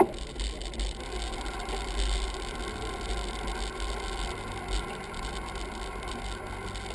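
Ride noise from a bicycle-mounted action camera rolling slowly over stone paving: a steady low rumble of wind on the microphone with rolling hiss. A sharp click comes right at the start.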